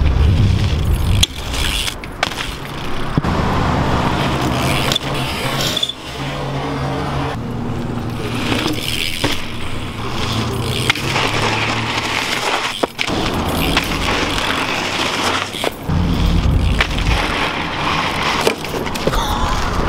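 BMX bike tyres rolling over a sandy dirt and concrete path, with several sharp knocks from the bike.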